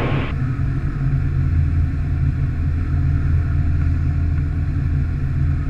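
Engine and propeller of an Evektor light-sport aeroplane running with a steady low drone, heard inside the cockpit as it lands on the runway.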